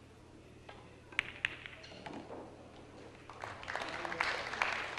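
Two sharp clicks about a second in: a pool cue tip striking the cue ball and the cue ball hitting an object ball. A couple of seconds later an audience breaks into applause, which grows louder toward the end.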